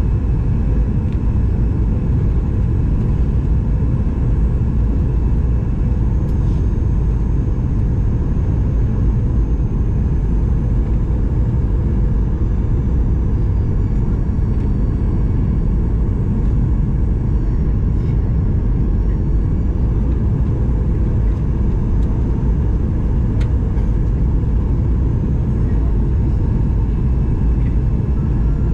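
Steady cabin rumble of a Boeing 737-900ER descending on approach, heard from a window seat, with the CFM56-7B turbofans running at low power. A faint high whine wavers in pitch about halfway through.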